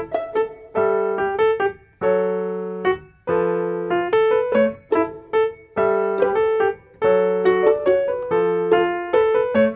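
Background piano music: a melody of separately struck notes and held chords in short phrases.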